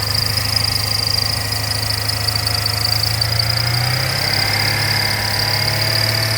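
2003 Toyota Celsior V8 idling, with a steady high-pitched whine from the belt drive over the engine hum. It is the abnormal noise that the owner suspects comes from the No.2 air-conditioner idler pulley, with the crank pulley, auto-tensioner and ribbed belt also under suspicion.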